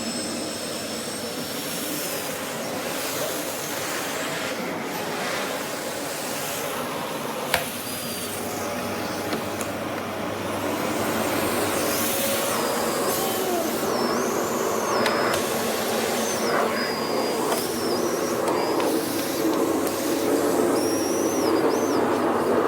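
Bosch BGS05X240 bagless cylinder vacuum cleaner running: a steady rushing of air with a high motor whine that steps and slides in pitch now and then as the suction changes. There is a single sharp knock about seven and a half seconds in.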